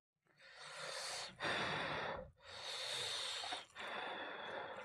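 A person breathing heavily in and out while eating, about one breath a second, five breaths in a row.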